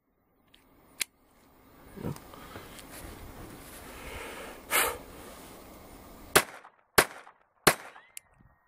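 Handling noise from a .22LR-converted Ruger LC9 pistol as a failure to extract is cleared: a sharp click, rustling and a clack. Then three .22LR shots follow in quick succession, about two-thirds of a second apart, in the last third.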